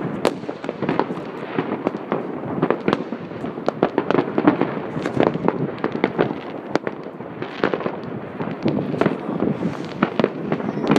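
Many fireworks and firecrackers going off at once across a city: a dense, unbroken crackle of overlapping bangs, some sharp and close, most further off.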